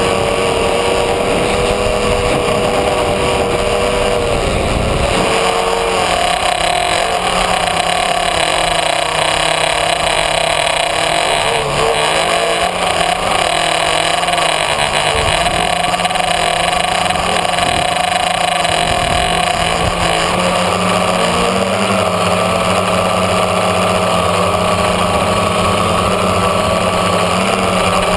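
Tricopter's electric motors and propellers running in flight, close to the microphone: a steady whine made of several tones whose pitches shift up and down as the throttle changes.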